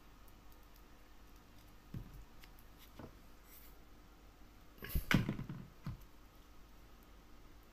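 Folded paper origami units being handled: a soft tap about two seconds in and another about three seconds in, then a short, louder burst of paper rustling and crinkling about five seconds in.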